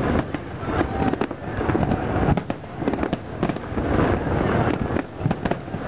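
Fireworks display: many aerial shells bursting in rapid, overlapping succession, a continuous barrage of bangs.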